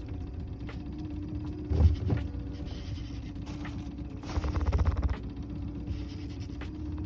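Fishing reel working under load during a tuna fight. A burst of rapid, regular ratcheting clicks comes about four seconds in, and a single knock about two seconds in, all over a steady low hum.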